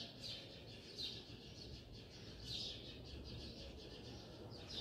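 Birds chirping faintly: a few short, falling chirps spaced out over a low background hum.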